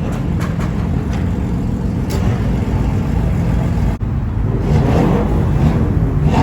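Car engine running at low revs, picking up a little in the last couple of seconds.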